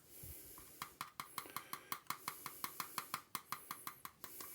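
Pepper grinder being worked over the pot, making a rapid, regular train of small clicks, about six or seven a second, starting about a second in.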